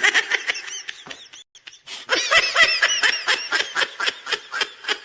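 A person laughing hard in rapid, high-pitched bursts, in two bouts with a brief break about a second and a half in.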